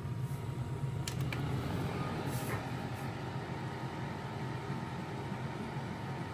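Small tabletop extractor hood's fan running at its highest speed, a steady whirr with a low hum. A couple of light clicks about a second in.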